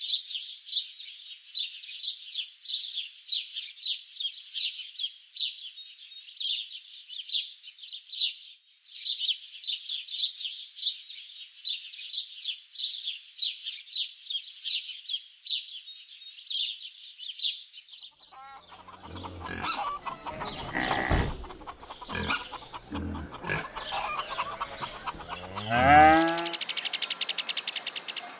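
Farmyard birds: quick high chirping, about three chirps a second, for most of the time. Later a mix of lower animal calls, with one loud rising call near the end.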